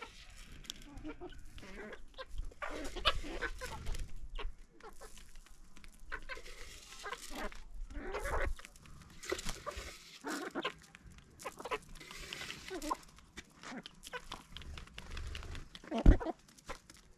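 Chickens clucking on and off in short, irregular calls, with a single loud thump near the end.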